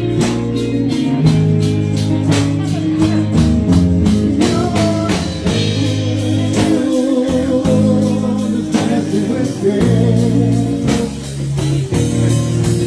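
Live band playing: drum kit keeping a steady beat under bass and guitar, with a singer's voice.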